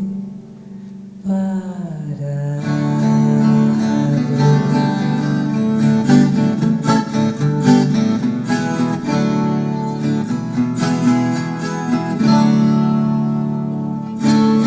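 Song performance: a woman sings the final word of a line, then an acoustic guitar plays on alone in a busy plucked and strummed instrumental passage.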